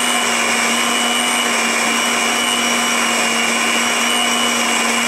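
Electric countertop blender running at a steady speed, grinding cooked lentils and tomatoes into a thin purée in its plastic jug: an even motor hum with a steady whir.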